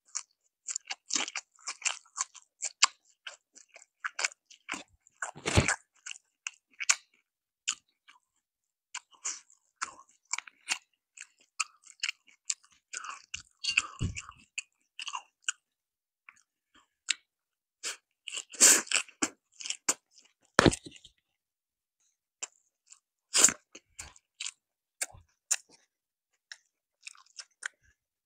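Close-miked chewing and crunching of crispy Korean fried chicken, a run of crisp bites and chews broken by short pauses, with a few louder knocks.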